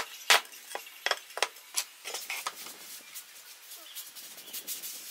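Light knocks and clatter of thin wooden strips being handled on a workbench, several sharp taps in the first couple of seconds, then a soft scratching of a pencil marking a board along a steel rule.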